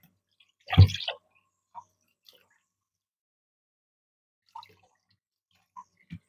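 Raw chicken being handled in a plastic basin at the sink: one wet knock about a second in, then a few faint drips and small taps.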